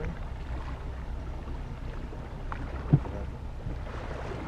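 Small fishing boat's outboard motor running steadily while trolling, a low rumble with wind and water noise over it. A single sharp thump about three seconds in.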